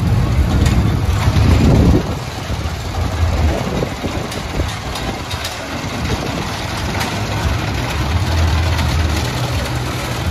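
Small steel kiddie roller coaster running: a steady low rumble with scattered light clacks as its train of cars rolls along the track. It is loudest in the first two seconds, then eases off.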